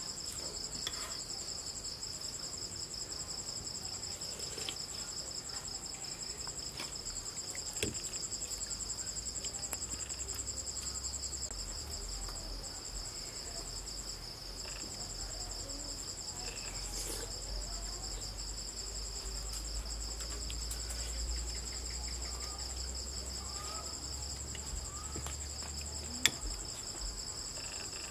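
Crickets chirring steadily at night in two high pitches, a fast even trill. Now and then a spoon clicks lightly against a ceramic soup bowl, with one sharp clink near the end.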